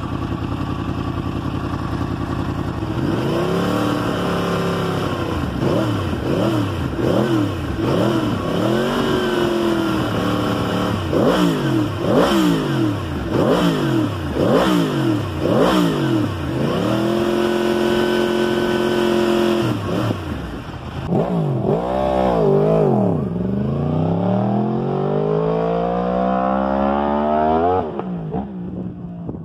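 Yamaha R1's crossplane inline-four revved while standing still: a run of quick throttle blips rising and falling, revs held high for a few seconds, then one long climb toward the top that drops away near the end.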